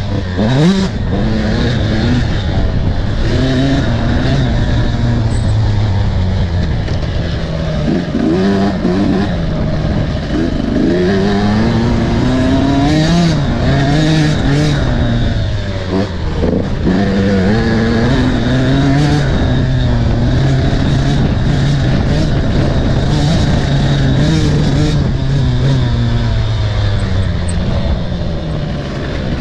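300 cc fuel-injected two-stroke enduro motorcycle ridden hard around a dirt track, the engine revving up and dropping back over and over as it is worked through the gears, to clear out sour two-stroke buildup. Wind rushes over the handlebar-mounted microphone.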